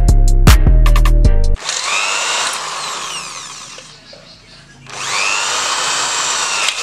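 Background music with a steady beat, cut off about a second and a half in by an electric drill boring through the thin sheet steel of a computer power-supply case. The drill's whine rises as it spins up, dies away around the middle, and starts up again about five seconds in.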